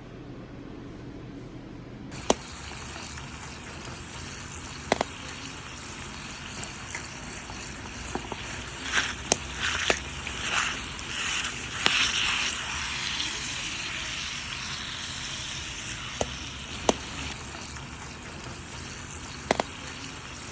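Food frying in hot oil over a campfire: a steady sizzle with occasional sharp pops. It starts about two seconds in and swells louder for a few seconds near the middle.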